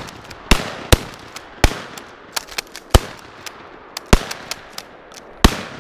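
Pump-action shotguns firing a rapid, uneven volley: about seven loud, close shots roughly a second apart, with fainter cracks in between.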